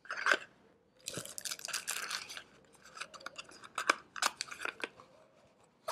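Hands handling small cardboard packaging and a coiled USB cable: a stretch of crisp rustling and scraping, then several light taps and clicks.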